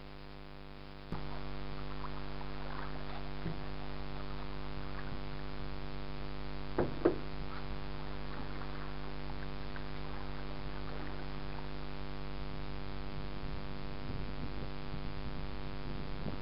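Small fishing boat on a lake, heard from aboard: faint knocks on the hull and water sounds over a steady hum, with two sharper knocks about seven seconds in.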